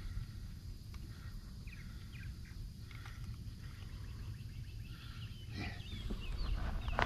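Small birds chirping in short groups, busier in the last couple of seconds, over a low steady rumble of wind on the microphone, with a few light knocks.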